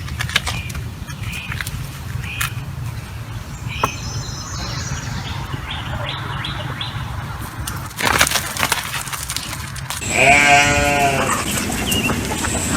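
Peacock giving one loud, nasal call about ten seconds in, after a few short high calls and scattered clicks.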